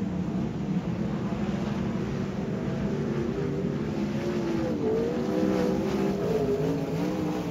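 Several sprint car engines running at race speed around a dirt oval, their pitches rising and falling over one another as the cars accelerate and lift through the turns, a little louder past the middle.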